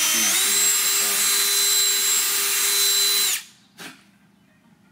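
Cordless drill whining at speed as it drills out a hole in a car's trunk lid a touch larger to fit a riv nut; its pitch steps up slightly just after the start. The motor stops abruptly a little over three seconds in, and a short knock follows about half a second later.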